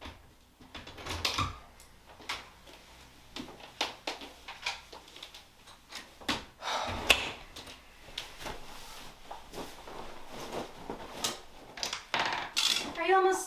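Interior doors being handled: latches and knobs clicking, a door and a louvered bifold closet door opening and closing, with knocks and rustling as someone moves about the room. A voice starts near the end.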